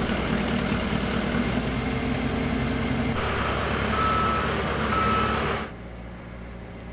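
Diesel engine of a mobile shop crane running steadily under load, with two beeps of its back-up alarm about a second apart in the second half. The engine sound drops to a quieter hum near the end.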